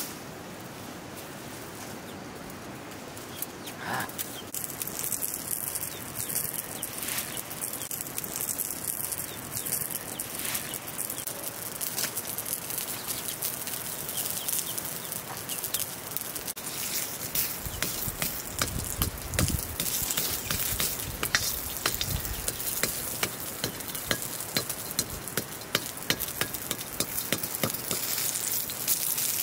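Hot fat sizzling and spitting in an iron wok over a wood fire, with a few small pieces of dried meat frying in it. It starts about three seconds in and gets busier toward the end.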